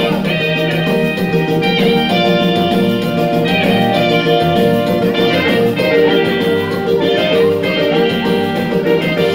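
Dance music led by plucked guitar lines over a steady beat, played loud.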